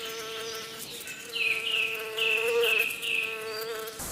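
Insect buzzing in a steady drone, with five short, quick chirps over it midway through.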